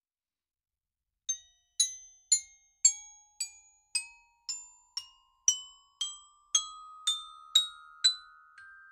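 Background music of struck mallet-percussion notes, about two a second, climbing step by step in pitch; it comes in about a second in, after silence.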